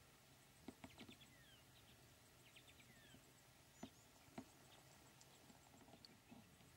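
Near silence with faint, scattered bird chirps and short falling whistles, and a few soft clicks.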